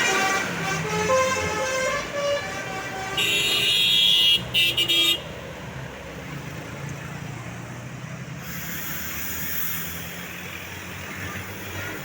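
Tour bus's telolet basuri multi-trumpet horn playing a melody of stepped notes, then a loud high-pitched horn chord about three seconds in and a few short toots just after. After that only the bus's engine rumble is heard.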